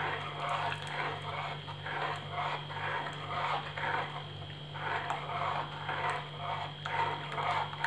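Steel spoon stirring milk in a nonstick pan, scraping the pan in soft repeated strokes about twice a second. The stirring keeps the poured-in ground rice and coconut from forming lumps.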